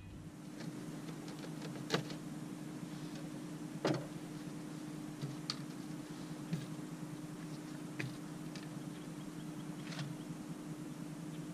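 Scattered knocks and clicks of fishing gear being handled in a boat, the loudest about two and four seconds in, over a steady low hum.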